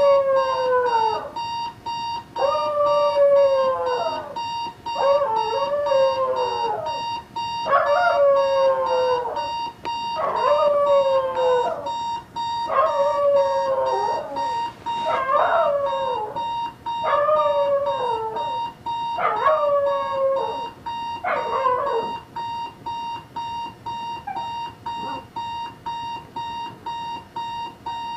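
A dog howling at a beeping electronic alarm clock: about ten drawn-out howls, each falling in pitch, roughly one every two and a half seconds, over the alarm's steady rapid beeping. About 22 seconds in the howls stop and the alarm beeps on alone.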